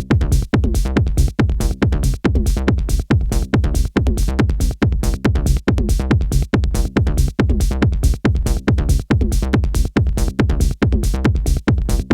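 Electronic techno music with a steady, fast, evenly pulsing beat over a heavy, sustained bass line, played live on hardware synthesizers and a groovebox.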